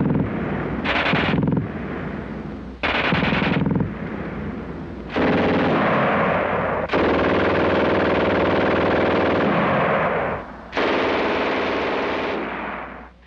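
Machine-gun fire in a series of long bursts, each starting suddenly, the longest lasting about three and a half seconds.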